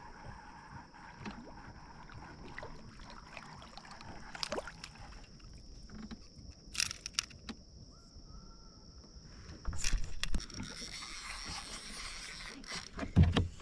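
Water sloshing and splashing around a kayak while a small fish is pulled out on a bobber rig, with a few sharp splashes and clicks, then louder knocks and rubbing from handling the fishing reel and rod in the boat about two-thirds of the way in.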